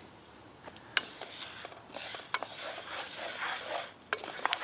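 Wooden spoon stirring dry oat groats as they toast in a pan, the grains scraping and rattling across the pan, with a few sharp clicks along the way.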